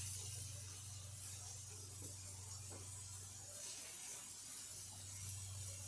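Quiet room tone: a steady low electrical hum with a faint hiss, and a few very faint soft sounds.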